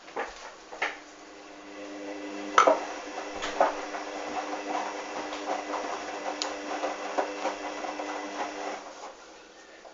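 Hoover washing machine's motor starting up and running with a steady hum and scattered clicks and knocks, then stopping near the end.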